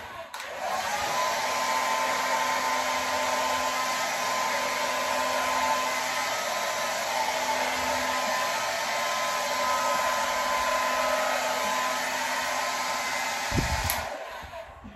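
Hand-held hair dryer running steadily, a hiss with a steady whine, blowing across wet acrylic pour paint to spread it; it starts about half a second in and switches off near the end.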